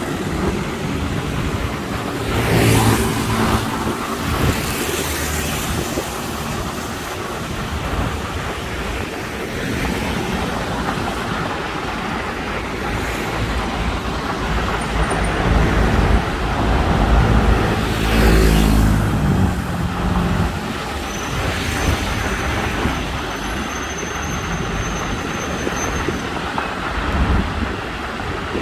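Busy city road traffic heard from a bicycle: a steady wash of passing cars and engines, with a heavier vehicle rumbling past more loudly about two-thirds of the way through.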